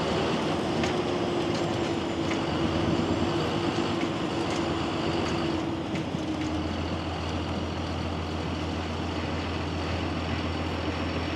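John Deere 7530 tractor's six-cylinder diesel engine running steadily under way. About six and a half seconds in, the higher whine drops away and a deeper steady hum takes over.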